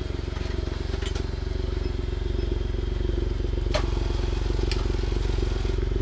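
Car engine idling steadily, a low, even hum, with a few faint clicks over it.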